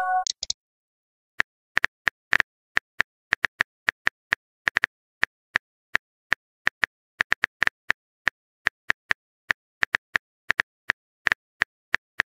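Phone keyboard typing sound effect: a run of short, light tapping clicks at an uneven pace of about three or four a second, the sound of a text message being typed. A brief chime dies away in the first half second.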